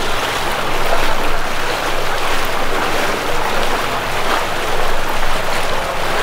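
Floodwater splashing and sloshing steadily as people wade through it, pushing an inflatable rescue boat.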